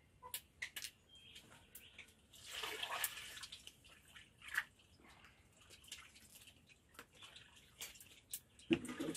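Faint knife work on a mamey sapote: small clicks and scrapes as the blade cuts into the fruit's rough skin, with a longer scraping rush about two and a half seconds in and a few knocks near the end.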